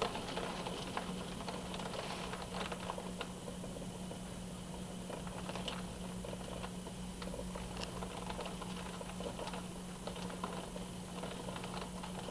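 Heavy rain pattering steadily, with many sharp drops ticking close by, over a steady low hum.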